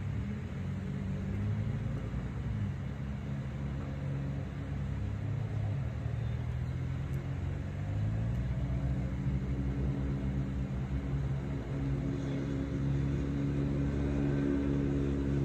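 An engine running steadily with a low hum, its pitch shifting a few times and creeping up slightly in the second half.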